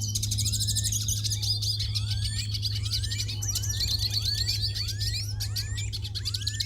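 Several small birds singing together: a dense, rapid high twittering chatter over short rising whistles repeated about twice a second, with a steady low hum underneath.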